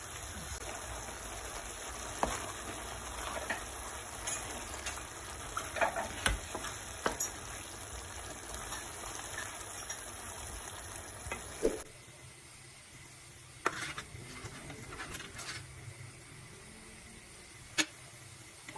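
Meat sauce sizzling in a stainless steel pan while a wooden spoon stirs it, with scattered scrapes and knocks of the spoon. About twelve seconds in the sizzling stops and it goes quieter, with a few sharp clicks.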